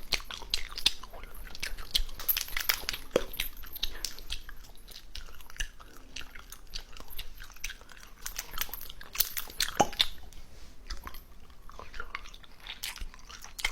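Close-miked ASMR sounds: a dense, irregular run of small crisp clicks and crackles with no speech.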